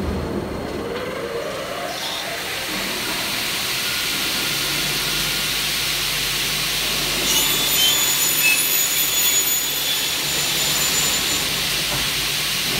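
Double-head CNC cutting saw running: a rising whine in the first two seconds as it spins up, then a steady whirring hum, with a louder stretch carrying high whining tones about seven to nine seconds in.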